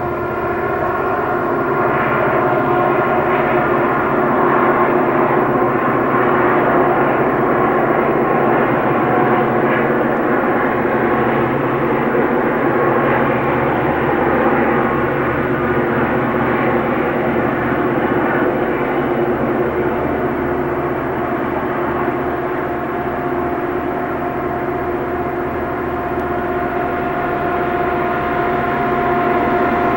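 Several Southern Pacific diesel locomotives working hard under load up a steep mountain grade: a loud, steady engine drone with pitched whining tones. A higher whine grows stronger in the last third.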